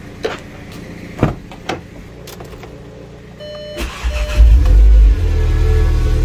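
Audi S1's 2.0-litre turbocharged four-cylinder petrol engine cranking and catching at once after a long time standing unused, flaring up briefly, then settling into a steady idle. A few light clicks and a short electronic tone come before the start.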